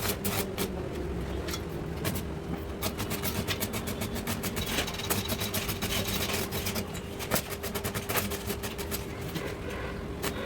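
Electric arc welding on a steel frame: an irregular crackle of rapid clicks over a steady electrical hum.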